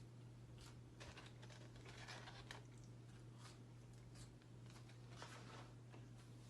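Faint eating sounds, soft irregular crackles and rustles of someone working through a burger and fries, over a steady low hum.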